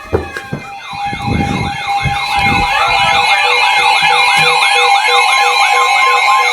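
Several NOAA weather alert radios sounding their warning alarms together. A siren-like warble rising and falling about three times a second starts about a second in and builds up over steady alert tones, and a pulsing beep joins about halfway through, signalling an incoming warning (here a blizzard warning). A few low knocks come in the first couple of seconds.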